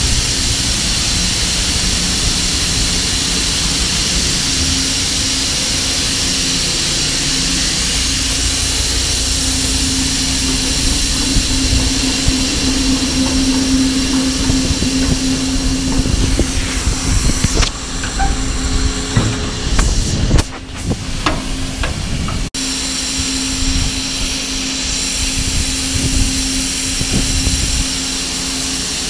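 Vari-Air pneumatic grain conveyor running loaded, its tri-lobe blower driven at about 56 to 57 hertz and 7 PSI. It makes a steady rushing hiss with a constant hum. A few knocks and bumps come about two thirds of the way through.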